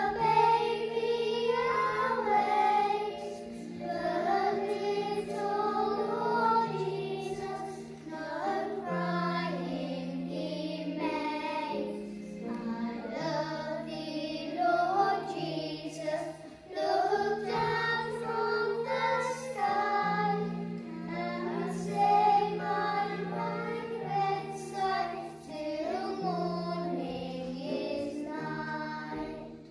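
A small group of young children singing a song together into a microphone, over an instrumental accompaniment that holds steady low notes.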